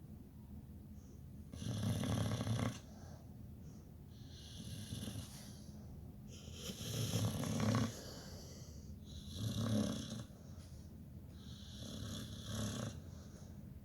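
Pit bull snoring in its sleep: five rasping snores, each about a second long, coming roughly every two and a half seconds.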